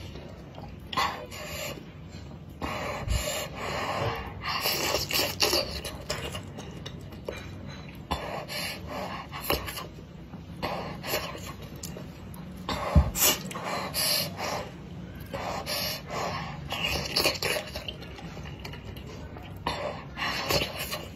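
Close-miked eating of spicy noodles and dumplings: slurping, chewing and noisy breaths in irregular bursts, with one sharp knock about two thirds of the way through.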